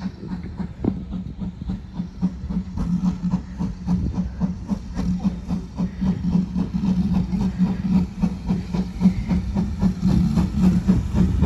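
GWR Large Prairie 2-6-2T steam tank engine working toward the listener, its exhaust beating in a rapid, steady rhythm that grows louder as it nears.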